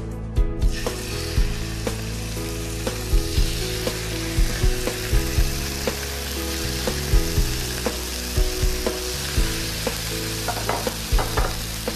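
Oiled beef tagliata steaks searing in very hot grill pans: a loud, steady sizzle that sets in sharply about a second in, as the meat hits the pans. Background music with a steady beat runs underneath.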